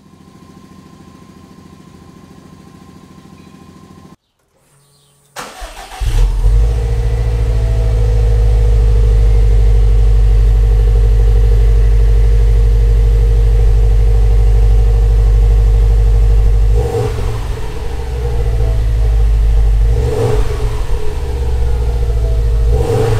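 2020 Subaru WRX STI's turbocharged boxer four starting through its factory exhaust about five seconds in, after a faint steady hum, then settling into a loud, steady, deep idle. It is blipped briefly a few times in the last seconds. This is the stock exhaust sound, which the owner finds muted.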